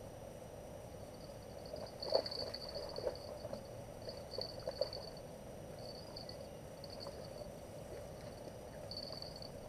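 Water splashing and knocking at a riverbank as hands work at the water's edge, with a few sharp hits, the loudest about two seconds in and more between three and five seconds. A high trill repeats in short bursts throughout.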